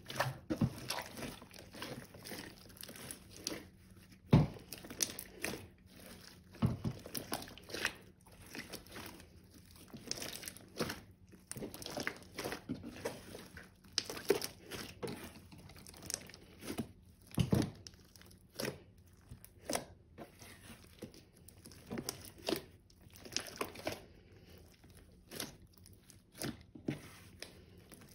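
Hands kneading, stretching and folding a large mass of mixed slime, with irregular wet squelches and sharp air-bubble pops.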